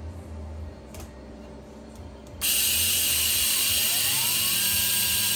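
Jäger high-speed motor spindle starting up: a low hum, then a sudden loud hiss about two and a half seconds in, and a whine that rises in pitch as the spindle spins up and settles into a steady high tone near the end.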